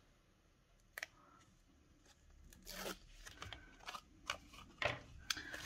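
Faint rustling and crinkling of paper and the plastic liner being peeled off double-sided tape, with a single click about a second in and scattered short rustles from about two and a half seconds on.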